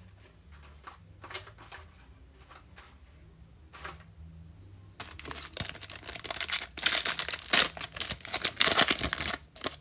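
Foil trading-card pack being torn open and its wrapper crinkled, a dense rustling and crackling from about five seconds in, after a few seconds of light card-handling clicks.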